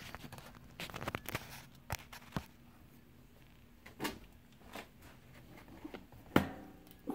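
Handling noise as a phone is set down and settled on a workbench: scattered light clicks and knocks. About six seconds in comes one sharp knock that rings briefly.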